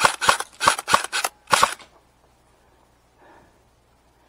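Airsoft rifle firing single shots on semi-automatic, about six sharp cracks in quick succession that stop a little under two seconds in.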